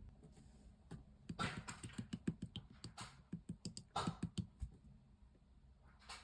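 Slime being pressed and squished by hand, making a quick run of small sticky clicks and pops, several a second, from about a second in until past the middle, then a single pop near the end.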